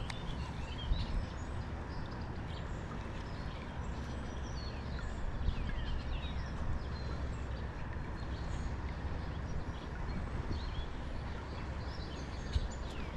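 Birds chirping and whistling in short calls, some of them falling in pitch, scattered over a steady low rumble.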